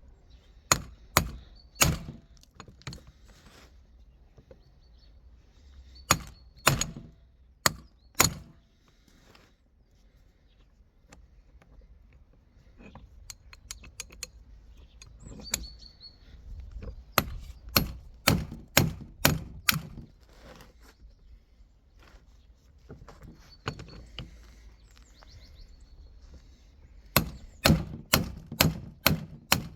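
Hand-tool blows on gearbox parts, most likely hammering: groups of sharp knocks with pauses between them, ending in a fast run of about three blows a second.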